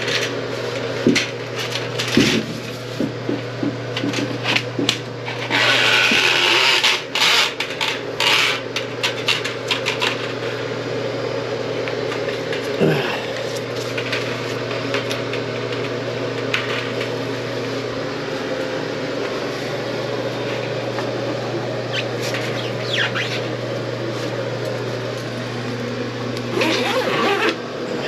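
Milwaukee M12 toilet auger motor running with a steady hum as its cable feeds down the toilet drain. Clattering and scraping come from about five to ten seconds in, with scattered clicks later.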